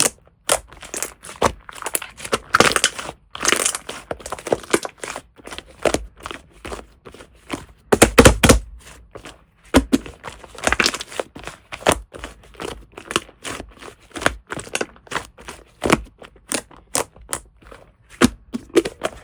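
Shaving-foam (fluffy) slime being worked by hand, giving rapid, irregular crackles and pops, with a louder cluster of pops about eight seconds in.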